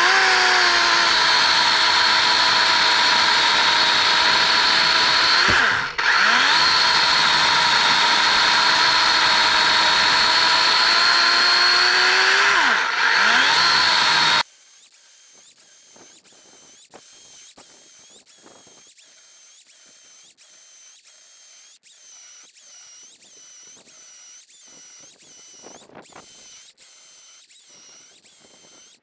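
DeWalt 12-inch XR cordless chainsaw running at full speed and cutting through wood (poplar): a loud, steady electric motor-and-chain whine, briefly dipping and recovering twice as it loads in the cut. About halfway through it cuts off abruptly, leaving only a faint background with soft regular ticking.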